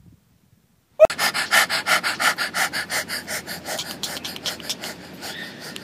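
Rapid, dog-like panting by a person with his tongue out, about six quick breaths a second. It starts suddenly about a second in, after a moment of silence.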